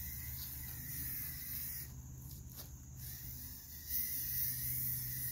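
Krylon aerosol spray-paint can hissing as it sprays, fired through a trigger spray-grip handle in bursts. The hiss drops out twice about two to three seconds in and comes back louder from about four seconds.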